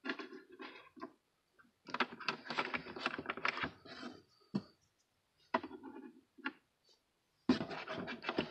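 Handling noise: bursts of rapid clicking and rattling of small hard objects being moved about, in four or five separate spells, the longest and loudest about two seconds in.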